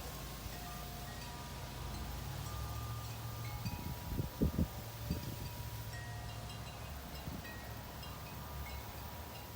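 Wind chimes ringing, short separate notes at several different pitches, over a low steady outdoor rumble, with a few brief low thumps about four seconds in.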